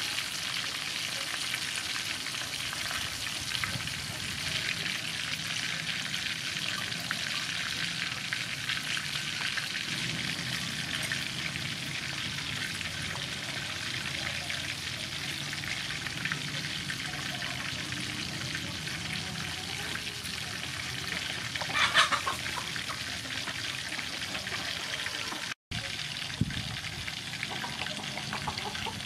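Breaded chicken wings deep-frying in soybean oil: a steady crackling sizzle of bubbling oil, with one brief louder crackle about two-thirds of the way through and a split-second break in the sound soon after.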